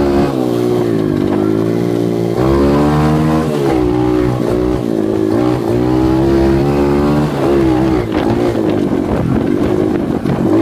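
Off-road vehicle's engine under way, its pitch rising and falling again and again as the throttle is opened and eased off.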